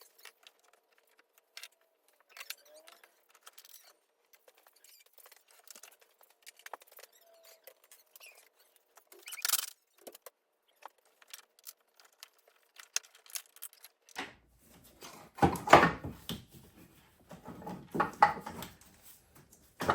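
Hand tools and metal parts being handled during engine work: scattered light clicks and clinks, with louder bursts of rattling and handling noise about 15 and 18 seconds in.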